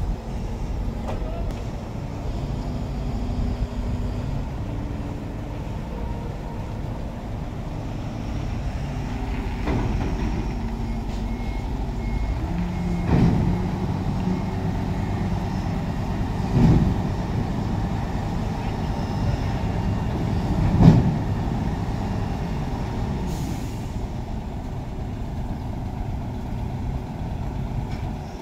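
Heavy diesel engines of a container truck and a mobile crane idling with a steady low rumble. Three short louder bursts of air-brake hiss come about 13, 17 and 21 seconds in.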